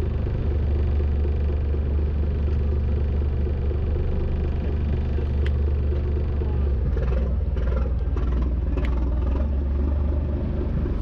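Fishing boat's engine running steadily with a low hum, with a couple of sharp knocks and some scuffing about halfway through.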